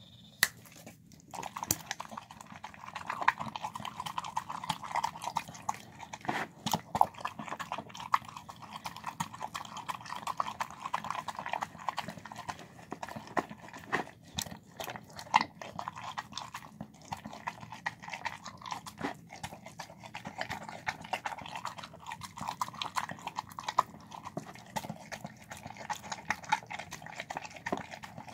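A bulldog-type dog eating soft chicken and rice from a bowl: wet chewing, licking and lip-smacking with many sharp clicks, going on without a break.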